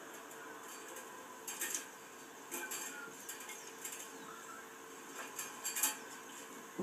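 Light metallic clinks and rattles of plain fencing wire and a chain being handled by gloved hands, coming in a few small clusters about a second or two apart.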